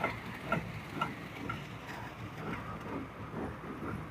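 Job-site machinery running low and steady, with faint regular ticks about two a second that fade out about halfway through.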